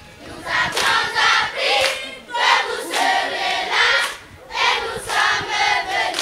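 A large group of schoolchildren singing and chanting together in loud phrases, with hands clapping.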